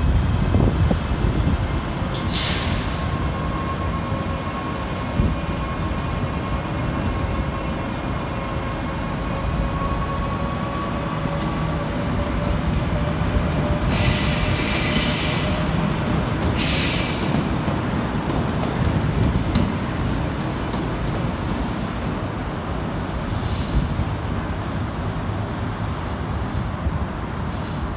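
Hyundai Rotem Class 83 electric train running on rails, a continuous rumble with a faint steady whine over the first dozen seconds. Several short high hissing bursts come through at intervals.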